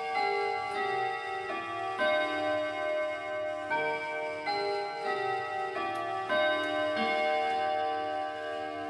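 Junghans chime clock playing one of its chime melodies: a run of struck notes about every half second, each ringing on under the next.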